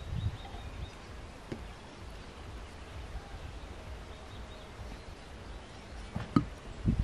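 Outdoor ambience: a steady low background rumble with a few faint bird calls, and a couple of soft knocks near the end.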